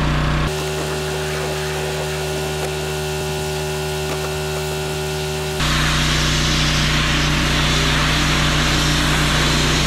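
Small gasoline pressure washer engine running steadily, its tone changing about half a second in. From about five and a half seconds in, the hiss of the high-pressure water spray joins it as the chains are blasted clean.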